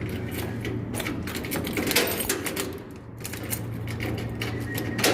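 Rapid, irregular clicking and clacking, many small hard knocks in quick succession, over a steady low hum.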